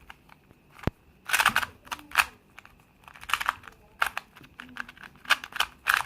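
QiYi QiDi S 2x2 speed cube being turned fast by hand, its plastic layers clacking in quick bursts of clicks with short pauses between them.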